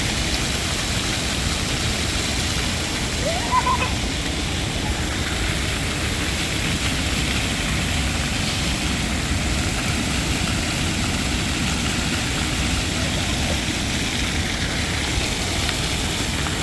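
Water fountain splashing with a steady, even rushing noise. A short rising squeak stands out briefly about three and a half seconds in.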